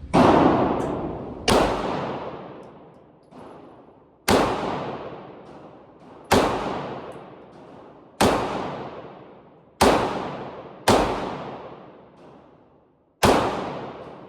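Gunshots fired one at a time, eight loud shots spaced irregularly about one to two seconds apart, each followed by a long ringing echo, with a fainter shot about three seconds in.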